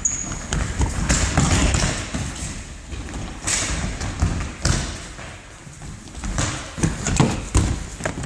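Indoor football on a wooden gym floor: running footfalls, the ball thudding off feet and floor at irregular moments, echoing in a large hall. A brief high squeak at the very start.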